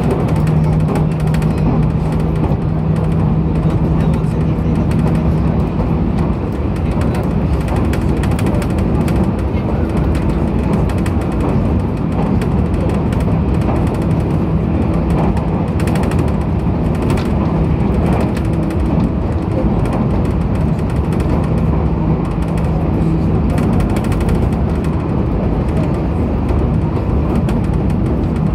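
Running sound inside the motor car of a JR Kyushu 811-series electric train at speed: a continuous rumble of wheels on rail with a steady low motor hum. The hum is strong for the first six seconds, fades, and returns at times later on.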